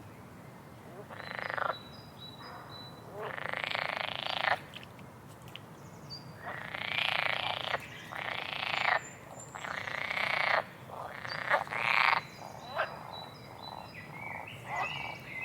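Frogs croaking over and over, in raspy calls of half a second to a second and a half that sometimes overlap, above the low steady rush of a waterfall.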